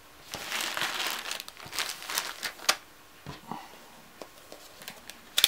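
Small plastic zip-lock bags full of cardboard game counters crinkling as they are gathered up and pushed aside, for the first three seconds or so. A few light clicks follow, and a sharp click near the end.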